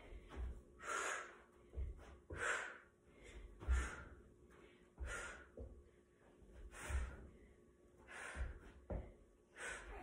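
A woman breathing hard in sharp gasping exhales about every second and a half during repeated barefoot box jumps onto a tufted ottoman, with dull low thuds of her landings and step-downs.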